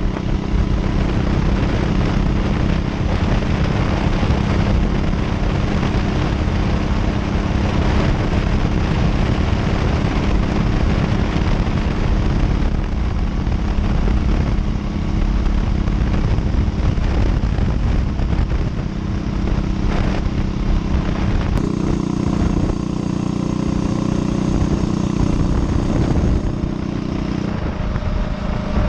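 Predator 212 single-cylinder four-stroke engine on a mini chopper motorcycle running steadily at high road speed, with heavy wind rush on the microphone. For a few seconds near the end the wind rush eases and the engine note stands out more clearly.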